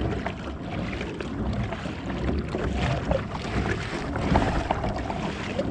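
Water sloshing and lapping against a fishing kayak's hull on choppy open ocean, with wind buffeting the microphone.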